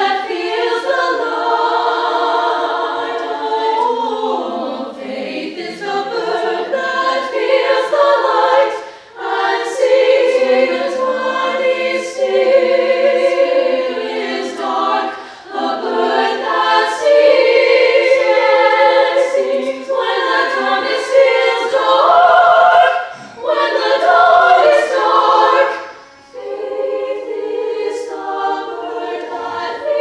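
Women's choir singing sustained chords in several parts. The phrases break off with short pauses every few seconds.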